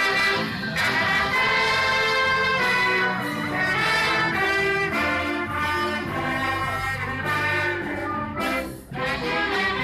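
Orchestra playing held chords with the brass, trumpets and trombones, to the fore, with a brief break between phrases near the end.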